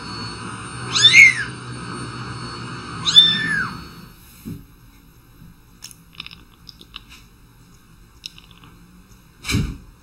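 Very young kitten mewing: two high-pitched mews in the first few seconds, each rising then falling in pitch. After that there are a few faint short sounds from a Siamese cat and one brief louder sound near the end.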